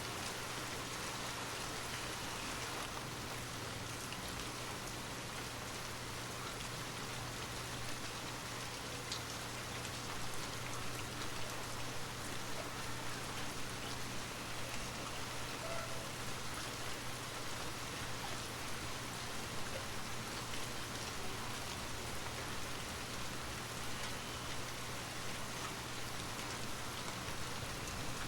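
Steady rain falling on a surface: an even hiss with scattered drops throughout.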